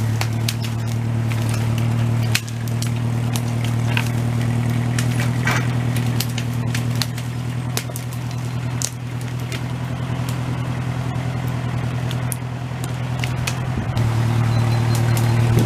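An engine idling steadily, with frequent crackling and snapping from branches and brush being handled. The engine grows a little louder near the end.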